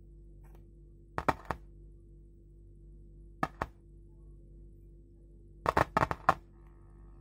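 Sharp pops and crackles from a woofer driven by a homemade 2SA1943 transistor amplifier, as an alligator clip makes and breaks contact on a wire. There are three pops about a second in, two near the middle and a quick cluster near the end, over a low steady hum.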